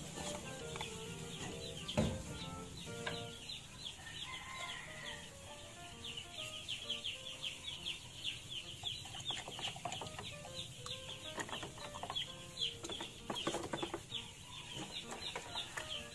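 A brood of young chicks peeping, many short falling cheeps overlapping, growing thicker after about six seconds. Soft background music runs underneath, with a single knock about two seconds in.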